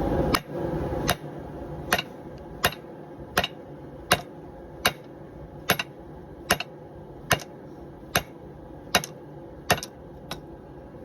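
Hand hammer striking thick forge-hot steel, about fourteen blows at a steady pace of roughly one every three-quarters of a second, each a sharp metallic strike with a short ring.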